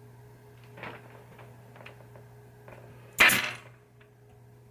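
Pneumatic staple gun firing once with a sharp crack about three seconds in, driving a staple into the wooden pinball playfield to hold a lamp socket. A few light handling clicks come before it, over a steady low hum.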